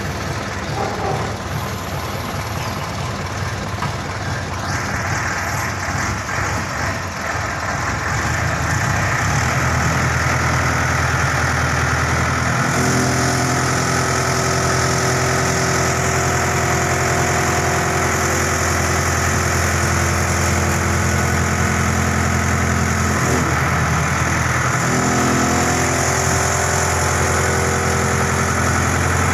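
Diesel generator set engine running. Uneven at first, it grows louder about eight seconds in and settles into a steady hum of several even tones, with a brief wavering a little past two-thirds of the way through.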